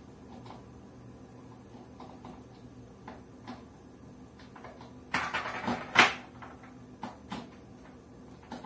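Kitchen cupboard being opened and shut: a scraping rattle about five seconds in ends in a sharp knock, with scattered light clicks and taps before and after.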